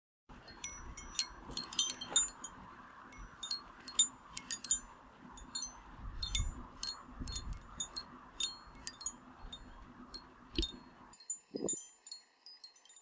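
Chimes tinkling in irregular clusters of high, ringing metallic strikes over a steady hiss. The hiss cuts off near the end, and a short dull thump follows.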